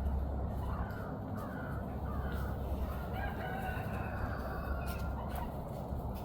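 Wild turkeys making a series of short, sweet chirping calls instead of gobbling, over a steady low rumble.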